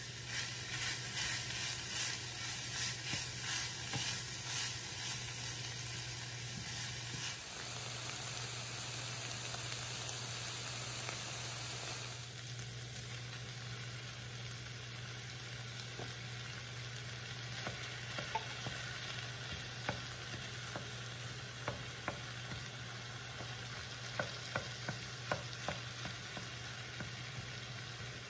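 Ground beef and diced vegetables sizzling in an enameled cast-iron pan, stirred with a wooden spoon in rhythmic strokes during the first several seconds. Later the sizzle is quieter, with scattered sharp clicks and a steady low hum underneath.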